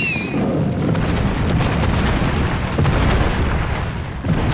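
Giant-monster sound effect: a loud, continuous explosive rumble, with a brief wavering high screech right at the start.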